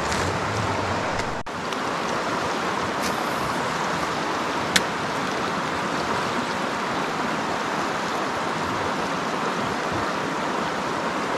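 River water rushing over a shallow rocky riffle: a steady, even rush. A single sharp click a little under five seconds in.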